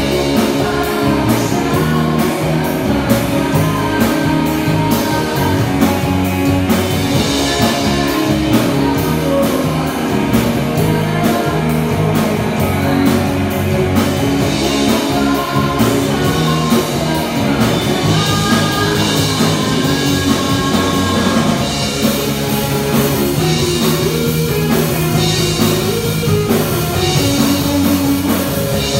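Three-piece rock band playing live: electric guitar, electric bass and drum kit, with a sung lead vocal over the band.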